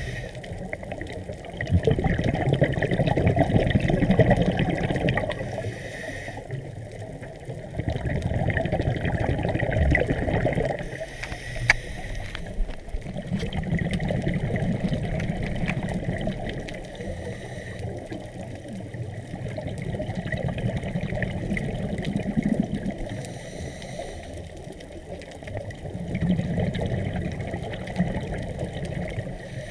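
Water washing and splashing in surges that swell and fade every few seconds.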